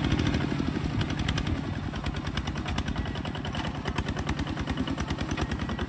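Small Kubota bulldozer's engine running with an even, rapid chugging beat. It eases slightly in loudness during the first second or so, then holds steady.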